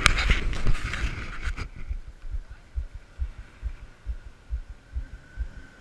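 Stuck Jeep Wrangler's engine revving with its tyres spinning in mud for about the first second and a half, then dropping back to a low, even throb about two to three times a second.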